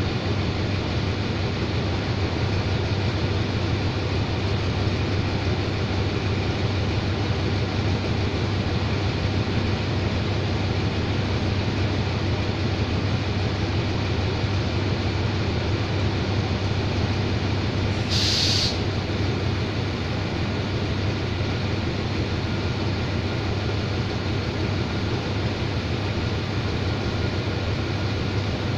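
Diesel-electric train locomotive idling while standing at the platform, a steady low engine hum. A short hiss about two-thirds of the way through.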